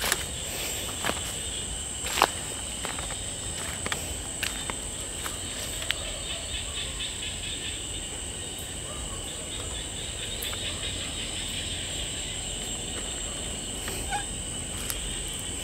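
Night chorus of crickets and other insects: a steady, high-pitched trilling at two pitches. Over it come scattered short clicks and rustles of someone walking through undergrowth.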